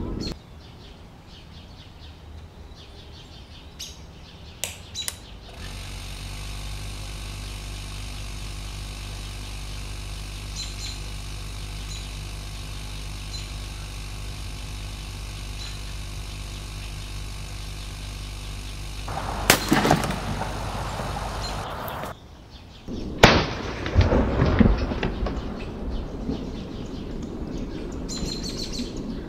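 Hermetic refrigerator compressor running with a steady hum as it pumps air into a plastic soda bottle. The bottle bursts with a loud bang about 19 seconds in, and a second sharp bang follows a few seconds later after a short break.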